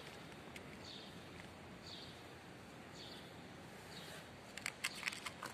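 A small bird chirps faintly about once a second over a low outdoor hiss, and a quick run of sharp clicks comes near the end.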